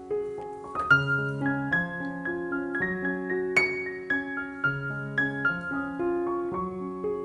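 Background piano music: a gentle melody of evenly paced notes over a simple repeating bass line.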